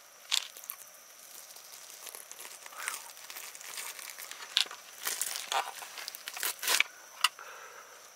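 Pliers gripping and peeling the skin off a small channel catfish, with irregular sharp crackles and clicks as it pulls away, the loudest clustered between about five and seven seconds in.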